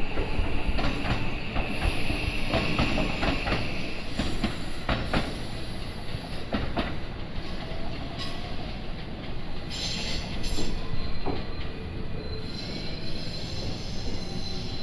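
Local electric train running past and away, its wheels clacking repeatedly over rail joints and points. A high, steady wheel squeal sounds in the first few seconds, and another higher squeal starts near the end.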